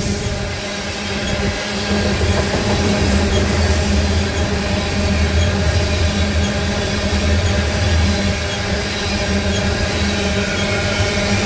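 Freight train of tank cars rolling past, with the steady noise of steel wheels running on the rails and a faint regular ticking about twice a second.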